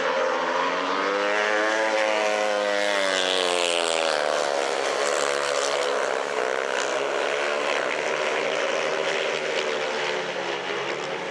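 Four speedway bikes' 500cc single-cylinder methanol engines racing together, their pitch rising and falling as the riders power down the straights and ease off into the turns.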